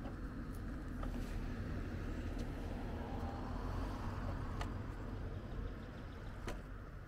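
Steady low rumble of riding an electric bike: wind on the microphone and tyres rolling, with a few light clicks.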